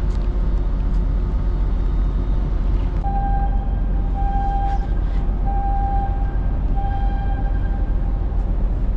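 A steady low machinery rumble from the ship. From about three seconds in, four short pitched beeps sound a little over a second apart.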